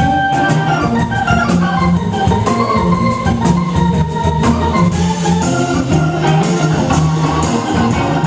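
Live blues band playing an instrumental passage: a held note gives way about a second in to a moving melody line over a steady bass line and drums with cymbals.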